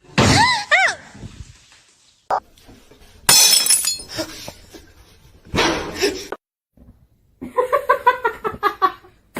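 A cat's short meow rising and falling in pitch at the start, then a loud crash like something breaking about three seconds in, and near the end a quick run of short pitched calls.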